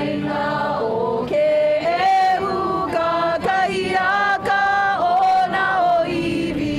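A crowd of men and women singing together without instruments, a slow song with long held notes.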